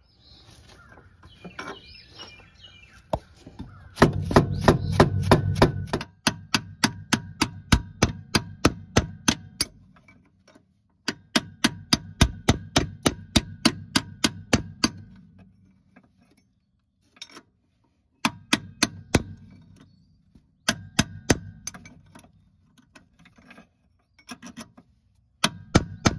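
Hammer driving a chisel against a seized lower rear shock bolt, in quick runs of about three sharp blows a second with short pauses between runs and a light metallic ring. The bolt is wedged between the shock and its mount.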